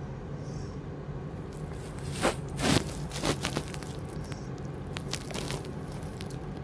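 A sleeping woman snoring: short, noisy snores in pairs, the loudest a pair about two seconds in, another pair just after three seconds and a fainter pair past five seconds, over a steady low hum.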